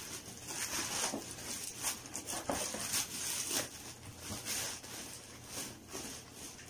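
Plastic courier mailer bag and plastic wrapping rustling and crinkling in short, irregular crackles as a cardboard shoe box is pulled out and handled.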